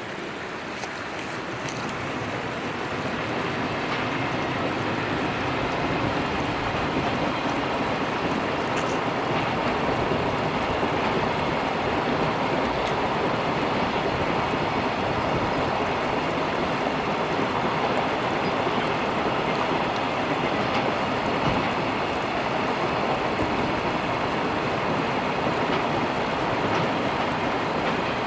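Container freight train running past on the rails, growing louder over the first few seconds and then a steady rumble of wagons. A shallow stream flows over rocks underneath.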